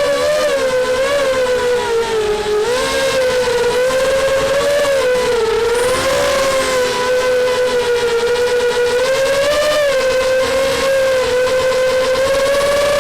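Small FPV racing quadcopter's motors and propellers whining steadily in flight, the pitch wavering slightly up and down.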